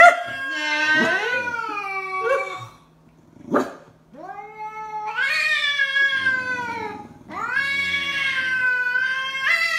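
Calico house cat yowling at a stuffed toy dog: three long, drawn-out yowls that bend up and down in pitch, with a short sharp cry between the first and second. A defensive threat call from a cat that does not like the stuffed animal.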